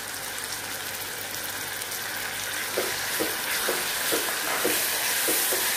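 Hot oil sizzling in a pot as chopped tomatoes go into the fried onions and ginger-garlic paste, then a spatula stirring them with quick regular strokes, two or three a second, from about three seconds in. The sizzle grows a little louder once the stirring starts.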